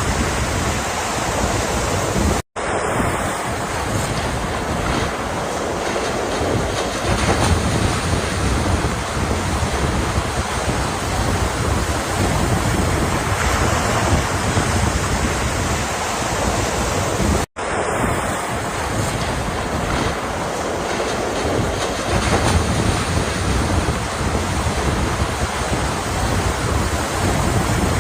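Ocean surf washing steadily, a continuous roar of breaking waves with no distinct pauses. The sound cuts out completely for a split second twice, about two seconds in and again fifteen seconds later.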